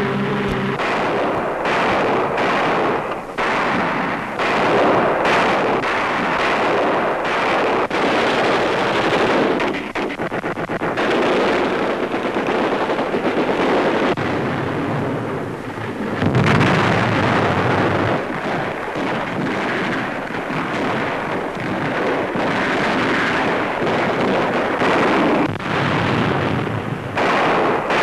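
Heavy, continuous battle gunfire: rapid rifle and machine-gun shots crackling one after another, with heavier blasts mixed in and a big one a little past halfway.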